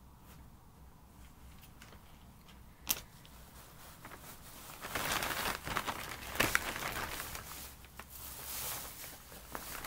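Large black plastic bin bag crinkling and rustling as it is handled, starting about halfway through, after one sharp click.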